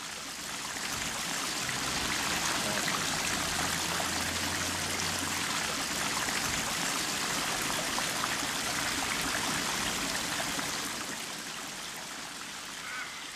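Sailor's Creek falling through the blowhole, a channel blasted through a granite cliff: a steady rush of falling water that swells about a second in and eases off near the end.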